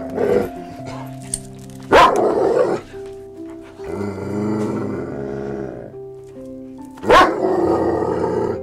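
Dog barking over background music: loud barks right at the start, about two seconds in and about seven seconds in, with a longer drawn-out dog vocalisation in the middle.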